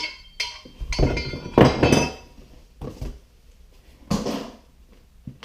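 Loose metal reloading-press parts clinking and clattering as they are handled and set down in their box, in several separate bursts, loudest a second or two in and again near four seconds.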